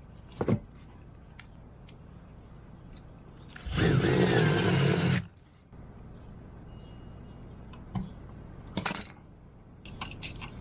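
A power tool runs in one short burst of about a second and a half, its pitch wavering slightly, amid scattered knocks and clicks of building work.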